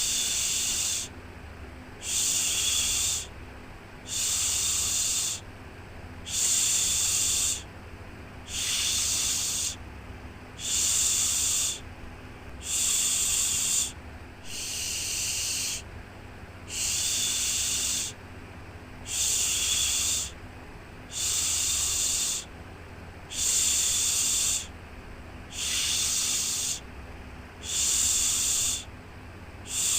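Repeated 'shhh' shushing sound meant to soothe a baby to sleep, one shush about every two seconds, each lasting just over a second, over a faint steady low hum.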